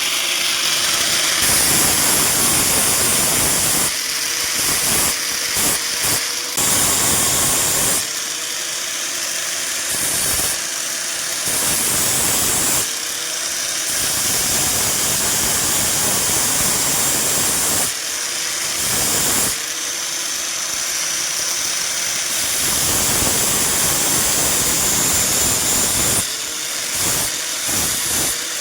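Electric grinder grinding metal: a loud, continuous hiss whose motor tone drops under load and climbs back each time the pressure eases, several times over.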